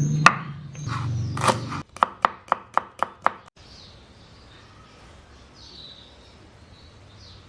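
Knife chopping on a cutting board: six quick, even chops at about four a second, after some louder knocks and handling. Faint bird chirps follow in the background.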